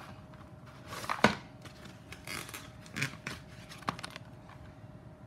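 Handling noise as a small FPV quadcopter is lifted out of its foam-lined cardboard box: rustling with a few sharp clicks and knocks, the loudest about a second in and others near three and four seconds in.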